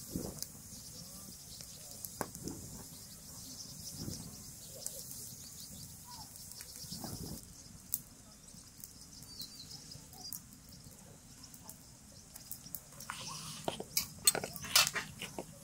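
Quiet outdoor background with a faint steady high hiss and a few soft taps from handling food on a tray and platter. A quick run of sharp clicks comes near the end, as a metal spoon works over the plate.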